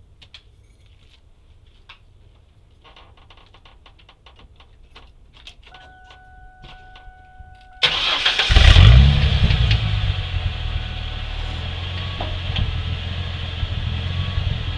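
1999 Ford Mustang engine being started: a few small clicks and a faint steady tone, then about eight seconds in the engine fires, surges briefly and settles into a steady idle.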